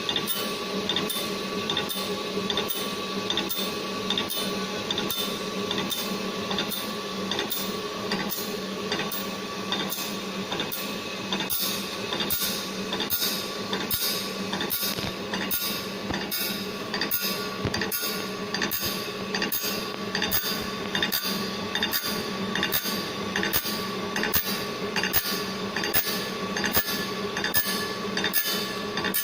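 A circular saw blade grinding machine runs its cycle: a steady motor and grinding-wheel hum with a regular pulse, about three every two seconds, as the wheel grinds the blade tooth after tooth.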